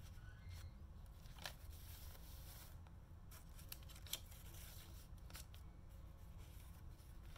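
Faint rustling and a few soft crackles of thick paper as the pages of a handmade paper journal are handled and turned, over a low steady hum.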